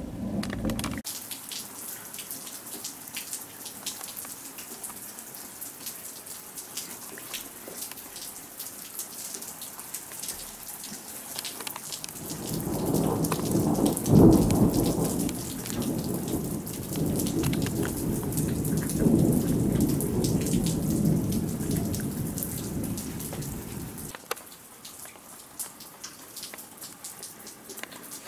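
Steady rain with drops ticking on a nearby surface. A short rumble dies away about a second in. About twelve seconds in, thunder rolls in with a sharp loud crack near its start, rumbles on for about ten seconds, then fades out, leaving the rain.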